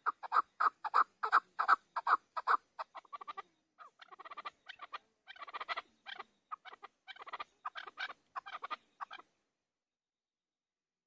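Chukar partridge calling: a run of loud, evenly repeated chuck notes, about three a second, giving way after a few seconds to softer, quicker chattering clusters. The calling cuts off about nine seconds in.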